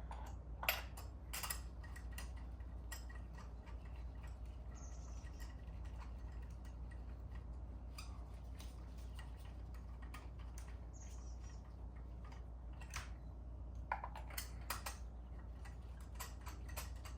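Hand tools at work: irregular clicks and light metallic taps of a socket wrench and fasteners as bolts are tightened and threaded in by hand, with a few sharper clicks near the start and about fourteen seconds in, over a steady low hum.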